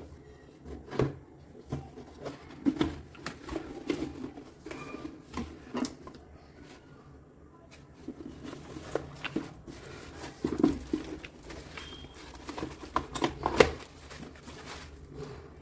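Irregular clicks, taps and rustles of objects being handled close up, a dozen or so separate knocks with quieter shuffling between them, the loudest near the start and just before the end.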